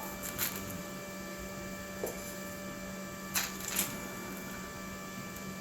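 Steady electrical hum made of several level tones, with a few short clicks or taps: one shortly after the start and two close together a little past the middle.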